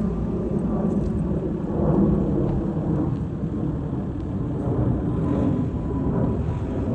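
Boeing 777-200 airliner's twin jet engines as it flies over: a low, steady rumbling roar with a faint whine above it.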